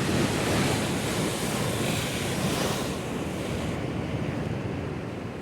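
Sea waves breaking and washing over rocks. A loud surge of surf at first, whose hiss dies away after about three seconds as the water drains back.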